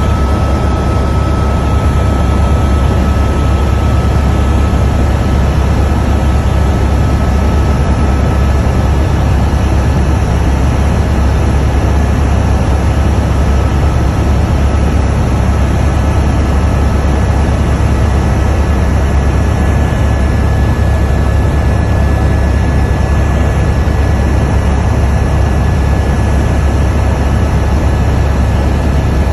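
Helicopter in flight heard from inside the cabin: a loud, steady low drone of engine and rotor, with a faint steady high whine above it.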